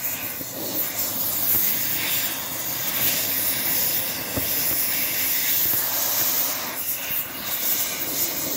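TIG welding arc on aluminium, giving a steady hiss.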